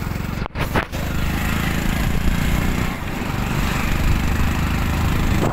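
Motorcycle engine running steadily while riding, with a steady rush of wind noise. The sound drops out briefly twice about half a second in.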